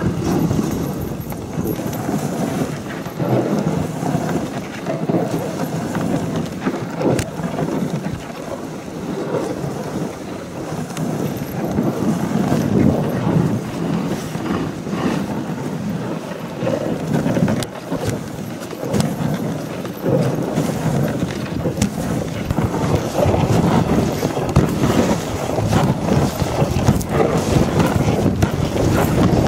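Dog sled runners sliding and scraping over snow while the sled is pulled along, with wind buffeting the microphone; the rumbling noise gets louder over the last few seconds.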